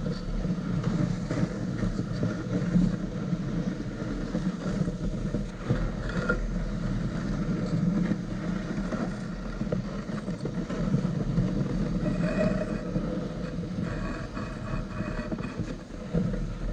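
Steady rushing noise of a dog-drawn rig gliding fast over a packed snow trail, with a low rumble of wind buffeting the microphone.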